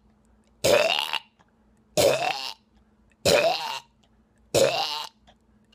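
A man beatboxing a harsh, throaty vocal bass sound, repeated four times about a second and a quarter apart, each with a rising pitch.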